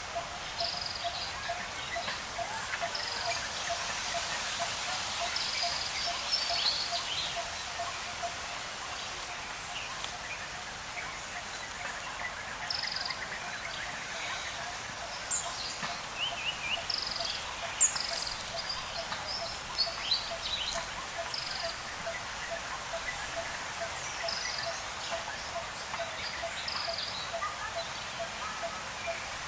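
Forest ambience full of birdsong: many short, high, falling chirps from several birds, loudest in the middle, over a low call that pulses evenly about three times a second throughout.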